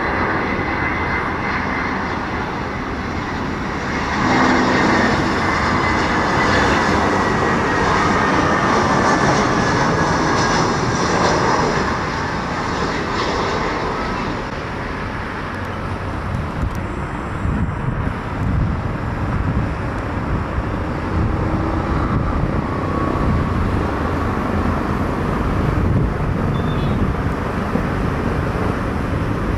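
Airbus A320 airliner's twin jet engines on approach and landing: a high whine that falls slowly in pitch and is loudest a few seconds in. It gives way about halfway through to a steady, noisy rumble as the jet rolls out on the runway.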